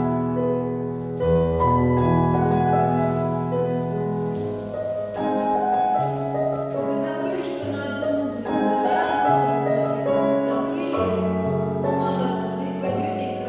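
Piano music in a classical style, with chords changing at a steady, even pace.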